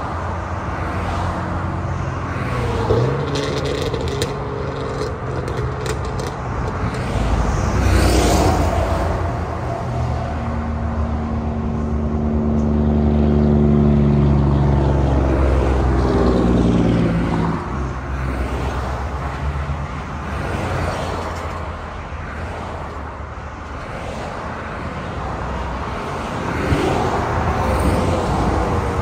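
Highway traffic passing close by at speed: cars, pickups and heavy trucks, a steady rush of tyre and engine noise that swells and fades as each vehicle goes by. About halfway through, a truck's engine hum drops in pitch as it passes, the loudest moment.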